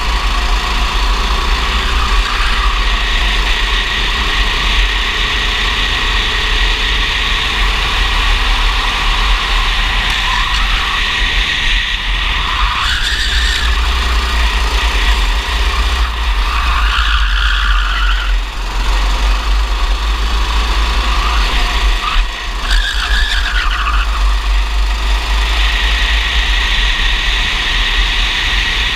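Racing kart engine heard onboard, running hard at high revs with a heavy wind rumble on the microphone. The engine note dips and climbs again several times in the middle stretch, as the kart slows for corners and accelerates out.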